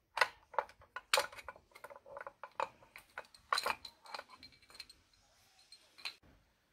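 Metal parts of a Honda Shine's front drum-brake assembly clinking and rattling as the brake panel and shoes are worked off the wheel hub by hand: a quick series of sharp clinks through the first four seconds, then one more click near the end.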